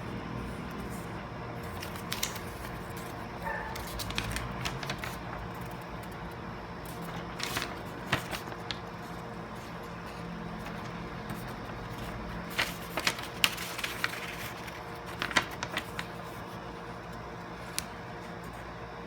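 Scattered clicks and rattles of small hard objects being handled, in loose groups, the loudest cluster a little past the middle, over a steady low hum.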